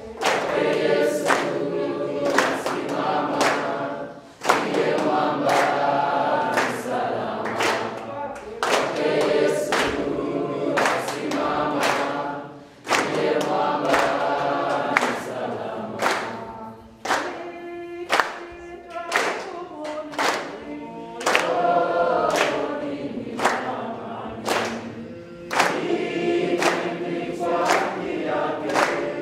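A group of young people singing a song together while clapping their hands on a steady beat.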